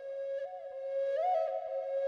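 Background music: a slow melody of held notes that step between a few nearby pitches over a steady drone.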